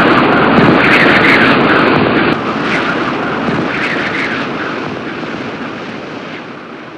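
Tornado winds blowing hard through a surveillance camera's microphone, a loud rushing noise with scattered crackles. About two and a half seconds in it cuts to a quieter stretch that fades steadily as the wind dies down.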